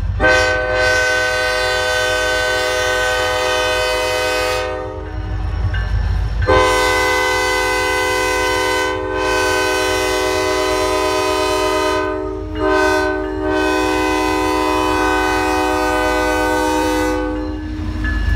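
Diesel locomotive's multi-chime air horn sounding three long blasts for a grade crossing, the second following a gap of about two seconds and the third only half a second after it. Under the horn runs the low rumble of the approaching train.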